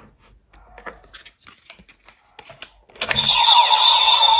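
Small plastic clicks as trading cards are handled and slotted into a DX Gotchard Driver toy belt. About three seconds in, the belt's electronic sound effect starts loudly, with steady high tones and sweeping glides, as it reads the inserted card.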